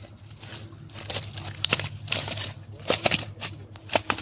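A mesh keep net holding live rohu fish being handled on a mud bank: crackling, rustling net and a string of sharp wet slaps, the loudest about three and four seconds in.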